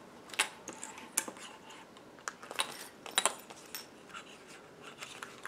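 Stiff clear plastic sheets being handled and lined up against each other, giving a few light, irregular clicks and crinkles.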